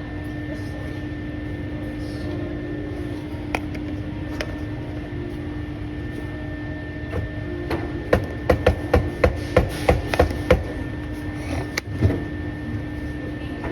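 A quick run of about eight sharp knocks on a hard surface, three or four a second, then a single knock a little later, over a steady hum.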